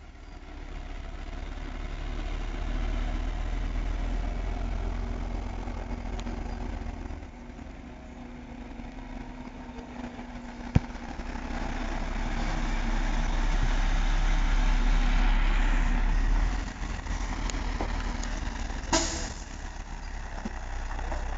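Diesel engine of a semi-tractor pulling a loaded tanker trailer at low speed, its rumble swelling and easing as the truck is driven through a slow turn, loudest just past the middle. A short sharp burst sounds near the end.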